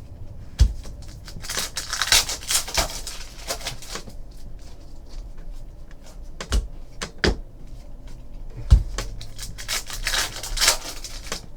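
Trading cards being handled and sorted: rustling and sliding of cards, with a few sharp knocks and clicks against the table.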